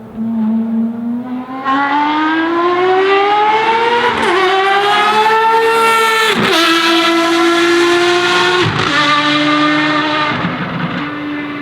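Ferrari FXX Evo's V12 engine accelerating hard, its note rising and then dropping sharply at each of about four quick upshifts.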